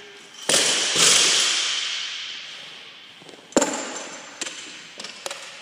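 Loaded barbell with 35 lb plates dropped onto the gym floor: two loud crashes about half a second apart as it lands and bounces, each dying away slowly. A few seconds later comes a sharp clank, then a few lighter knocks as the bar is stopped and settles.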